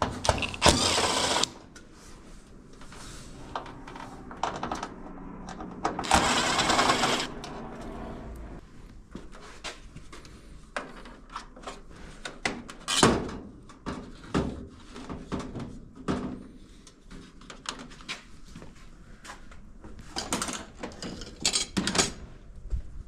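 A cordless drill or screw gun runs twice for about a second each, just after the start and about six seconds in, backing out the two screws in a GE electric dryer's door. Scattered clicks and knocks of tools and metal dryer parts being handled follow.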